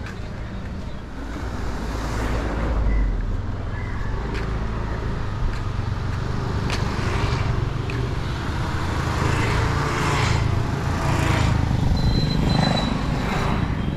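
A motor vehicle's engine running steadily on the street, getting louder after a second or two, with traffic noise.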